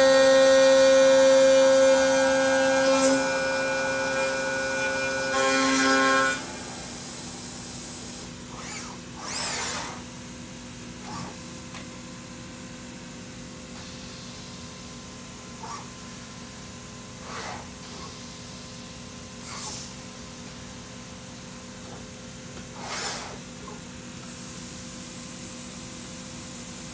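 Elumatec SBZ 140 four-axis profile machining center with its spindle whining as it machines an aluminium profile, a loud sound of several steady tones that cuts off about six seconds in. After that a lower steady machine hum runs on, broken by short whooshes every few seconds as the machine moves between operations.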